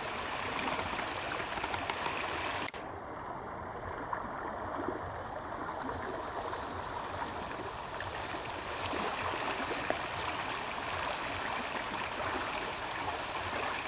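Steady rushing noise with a few faint clicks; the sound changes abruptly about three seconds in, with the higher hiss thinning out for a few seconds.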